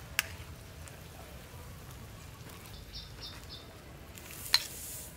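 Stainless-steel ladle clinking against the rim of a steel soup pot twice, once just after the start and more loudly about four and a half seconds in. A few short, high bird chirps about three seconds in.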